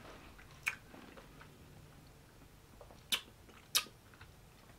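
Quiet sounds of eating ice cream from a metal spoon: three short, sharp clicks, one about a second in and two close together near the end.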